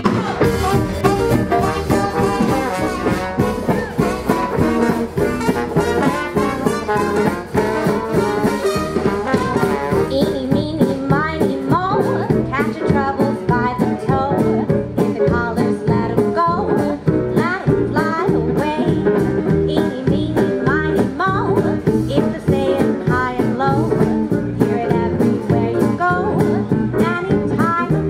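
Live jazz band playing in a swing style, with a woman singing into a microphone.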